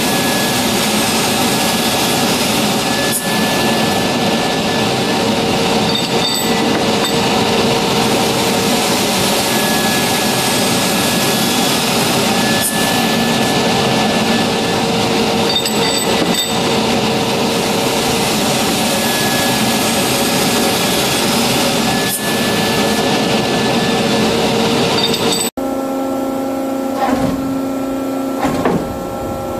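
Carbide-tipped circular saw blade of a Kentai KTC-150NF sawing machine cutting through a 150 mm aluminium round bar: a loud, steady, dense cutting noise with a held tone in it. About 25 seconds in, the cutting noise stops abruptly as the cut ends, and a quieter steady machine tone carries on.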